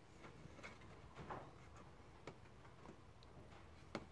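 Faint irregular clicks and light taps from small carburetor parts being handled, with the sharpest click near the end.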